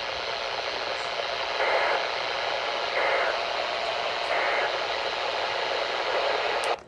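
Weather radio static over a weak signal, with three short bursts of Emergency Alert System end-of-message data tones about 1.3 s apart, marking the close of the flood warning. The static cuts off abruptly near the end.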